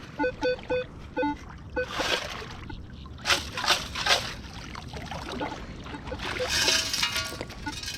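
Metal detector giving quick repeated short beeps on a buried target, then a sand scoop splashing and sloshing as it digs through the sandy bottom in shallow water, in several separate scoops.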